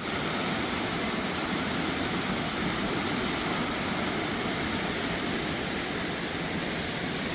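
Steady rushing of a swollen, fast-running river in flood.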